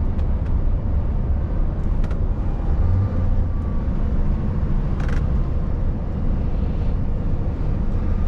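Scania S770's 16.4-litre V8 diesel engine running steadily under way, a constant low drone mixed with road and tyre noise, heard from inside the truck's cab.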